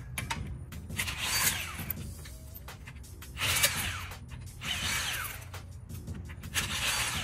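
Cordless impact wrench taking out wheel lug bolts in four short bursts of about a second each, each with a whine that drops in pitch.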